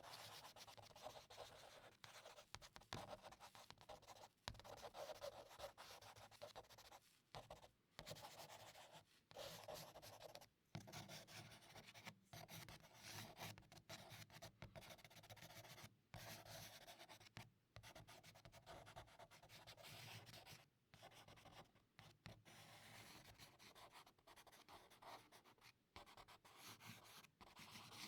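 Charcoal scratching and rubbing across paper in continuous drawing strokes, faint, broken by many short pauses where the stick lifts off.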